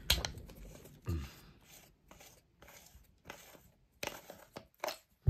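Small plastic clicks and scrapes from a handheld UV black-light flashlight being opened to get at its batteries: a few sharp clicks, one near the start, one about a second in and several close together about four seconds in, with faint scraping between.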